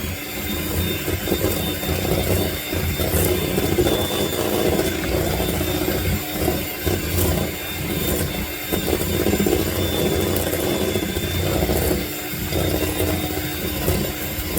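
Electric mixer running steadily, its beaters churning through cake batter as red food colouring is mixed in, with a steady motor whine.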